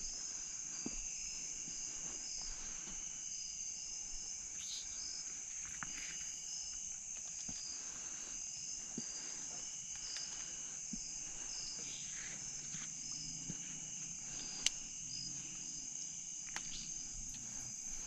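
Night-time insect chorus of crickets: a steady, high-pitched trill with a pulsing chirp beneath it, broken by a few faint clicks and one sharp click late on.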